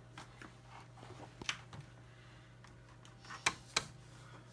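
Chicken eggs being set one at a time into a plastic incubator egg tray: scattered light clicks and taps of shell on plastic, with a pair of sharper clicks about three and a half seconds in.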